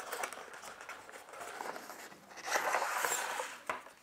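Cardboard product box being handled and opened by hand: rustling, scraping cardboard with small clicks, louder for about a second as the inner box slides out of its outer sleeve about two and a half seconds in.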